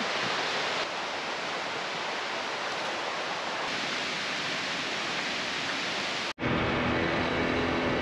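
Waterfall rushing with a steady roar of falling water. About six seconds in it cuts off sharply to a different steady noise with a low hum.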